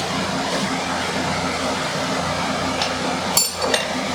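Steady hum of shop fans, with two light metallic clinks about three and a half seconds in, the first ringing briefly with a high tone.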